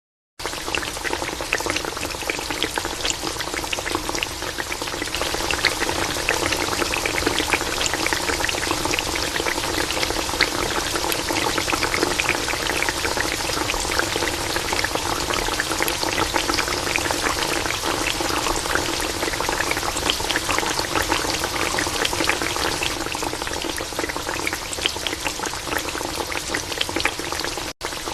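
Pieces of yam deep-frying in hot oil: a dense, steady sizzle full of fine crackles and pops, with a faint steady hum underneath. The sound cuts out briefly near the end.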